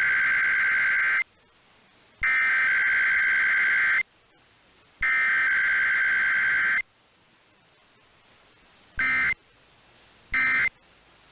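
Emergency Alert System SAME digital header sent three times: three long rapid two-tone data warbles about a second apart. About two seconds later, two short end-of-message bursts follow a second and a half apart. There is no attention tone or voice message between header and end, as in a required weekly test.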